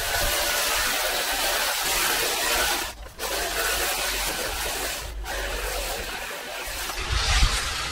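Long-reach pole hedge trimmer cutting a conifer hedge, its blades giving a steady rasping chatter that drops out briefly twice. A low thump comes near the end.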